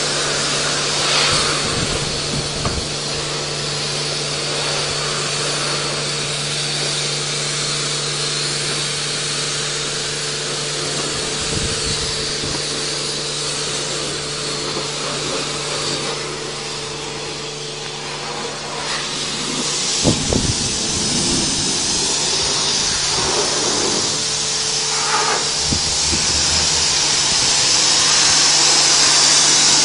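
High-pressure washer wand spraying a steady hissing jet of water against and into a car, with a steady low hum underneath. The spray grows louder near the end.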